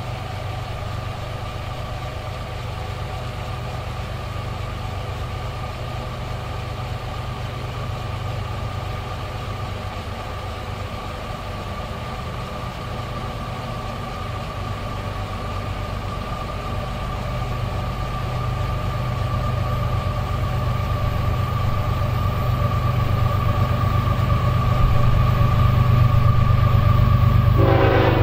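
Train running with a steady low hum and a steady high tone, growing gradually louder as it comes closer; a horn-like pitched sound starts right at the end.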